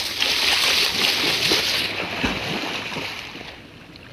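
Shallow muddy water splashing and sloshing around a hand net being worked through it, loudest in the first two seconds, then dying away.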